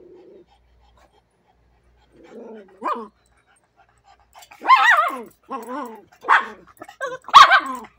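Pug barking in the small dog's face: a softer rising whine-like call, then a run of about five loud barks from about halfway through.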